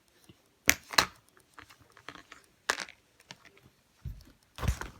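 Fidget toys being handled and put back into a backpack: three sharp rustles or clacks in the first three seconds, then a longer stretch of rustling near the end.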